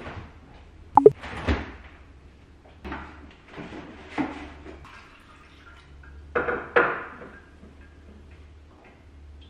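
Kitchen handling sounds: a refrigerator's French doors opened and shut, things taken out with knocks and clinks, and water from a glass carafe poured into a glass. A series of separate knocks and rustles, the sharpest about a second in.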